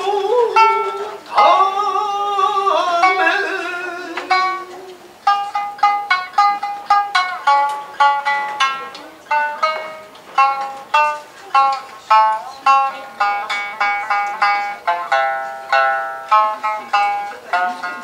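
A kouta on shamisen: a voice holds long, wavering sung notes over the plucked shamisen for about the first five seconds, then the shamisen plays on alone in a run of separate plucked notes.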